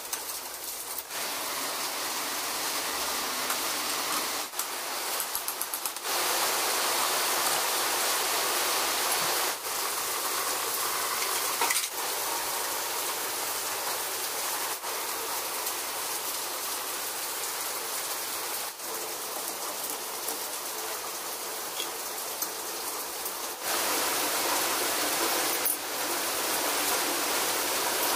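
Steady hissing spray noise with no pitch, stepping abruptly louder or softer several times.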